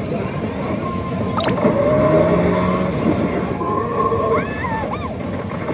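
Pachislot machine sounds during play on a Kabaneri of the Iron Fortress slot: a sharp start sound about a second and a half in, then a dense mix of the machine's effects with steady and gliding electronic tones while the reels spin.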